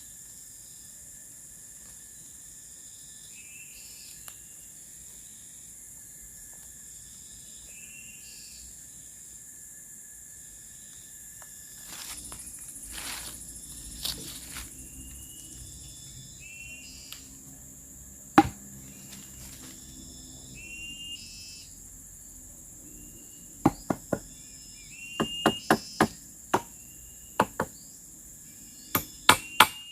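Insects shrilling steadily, with a bird chirping every few seconds. Sharp tool strikes on bamboo come once about two-thirds through, then repeat more and more often, ending as a steady run of about two strikes a second.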